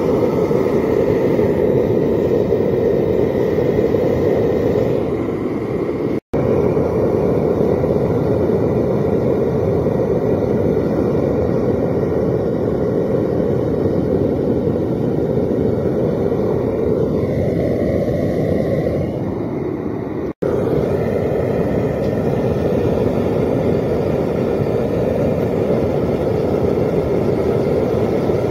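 Propane burner firing a homemade furnace built from a propane tank, running with a steady low rushing noise. The sound cuts out for an instant twice, about six seconds in and again about twenty seconds in.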